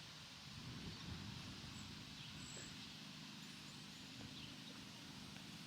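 Faint outdoor ambience: a low steady rumble with a few faint, short high chirps.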